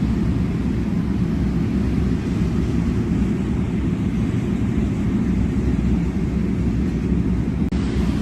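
Steady low rumbling noise with no clear tones, briefly broken just before the end.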